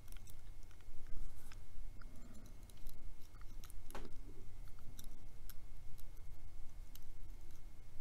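Hook pick and tension wrench working the pin stack of a Battalion padlock during single-pin picking: faint, irregular small metallic clicks and scrapes, with one sharper click about halfway through, over a low steady hum.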